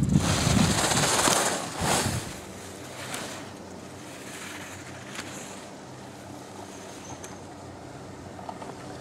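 Wind buffeting the microphone and the hiss of ski edges carving and scraping on the snow, loud for the first two seconds or so, then dropping to a lower steady outdoor hiss with a few faint clicks.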